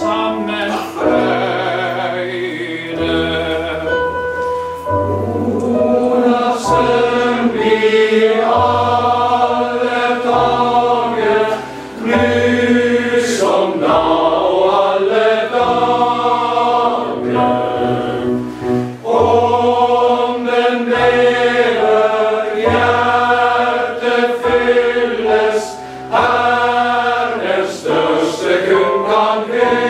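Male voice choir singing a slow, hymn-like piece in full harmony, holding long chords. Phrases are separated by brief breaths about 12 and 26 seconds in.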